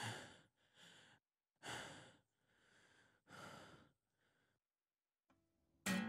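A man breathing hard and unevenly: about six heavy breaths in and out, fading away after about four seconds. Just before the end a low, gong-like musical tone strikes and rings on.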